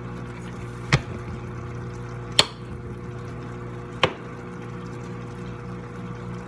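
A microwave oven running with a steady low hum, and three sharp knocks about a second and a half apart over it.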